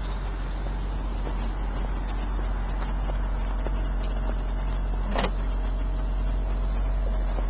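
The 2008 BMW 535i's twin-turbo straight-six idles with a steady low rumble. About five seconds in there is one short sharp click as the trunk lid unlatches and lifts.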